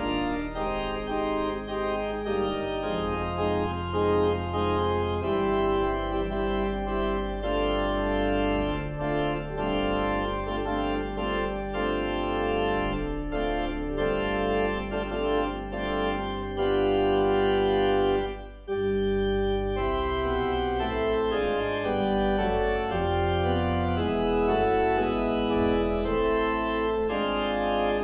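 Postlude played on an organ: held chords that change every second or so, with a brief break about eighteen and a half seconds in.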